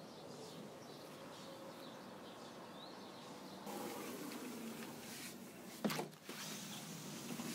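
Faint outdoor ambience with a few light bird chirps, and one sharp knock about six seconds in.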